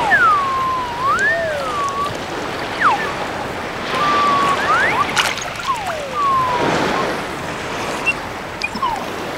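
Plastic water flute blown in a string of short whistled notes that slide smoothly up and down in pitch, like a bird call, over a steady wash of sea water.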